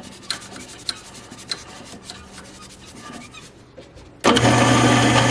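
Wood lathe running with a steady low hum, with light rubbing and scattered clicks as the turned ebony pen is polished. About four seconds in, loud electronic background music starts.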